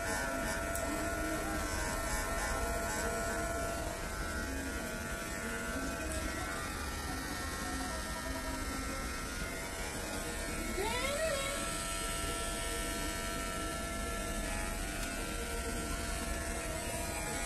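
Corded electric hair clipper buzzing steadily as it cuts hair, over a low steady hum. A brief rising tone sounds about two-thirds of the way through.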